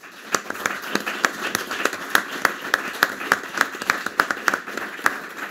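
Audience applauding: many people clapping in dense, irregular claps, thinning out near the end.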